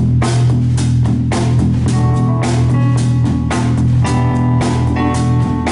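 A live band playing without vocals: a drum kit keeps a steady beat of about two hits a second under electric guitar and bass guitar.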